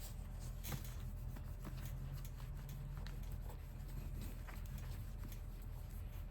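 Cloth wiping polish off a wheel's spokes: faint rubbing and rustling with light scattered ticks, over a steady low hum.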